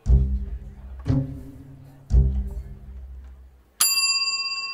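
Three low double-bass notes about a second apart, each fading away. Near the end comes a single bright bell strike that rings on: the speed-dating bell that marks the start of a round.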